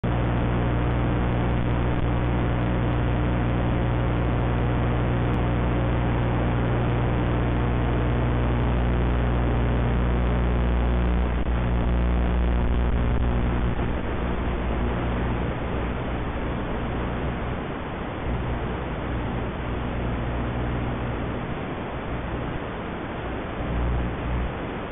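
Steady hiss with a low, even hum, the kind of static an analog FPV video link passes on to the goggles' DVR recording. About 14 seconds in the hum fades, and the hiss turns rougher and slightly quieter.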